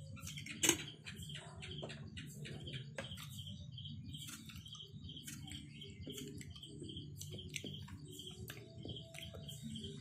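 Eating sounds of noodles being chewed and slurped: short wet clicks and smacks, the sharpest about a second in. Behind them a high chirp repeats evenly, about two to three times a second, over a low steady hum.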